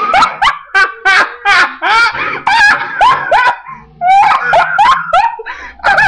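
A person laughing loudly in a long run of short bursts, about three a second, with a brief break about two thirds of the way through.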